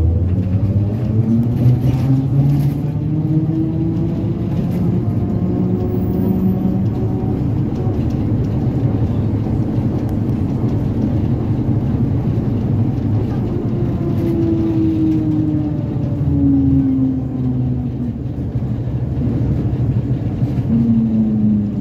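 ZiU-682 trolleybus's traction drive whining over road rumble: the pitch rises as it picks up speed over the first few seconds, holds, then falls as it slows about two-thirds of the way in, and again near the end.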